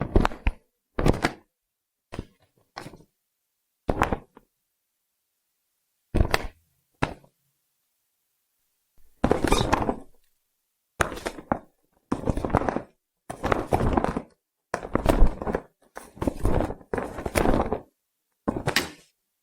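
A run of about sixteen separate weapon- and tool-swing sound effects, each a short swish or thud set apart by silence, the later ones longer and closer together.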